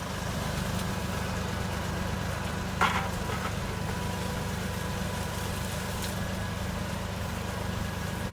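Steady low mechanical rumble, like an engine idling, with a brief higher squeak about three seconds in.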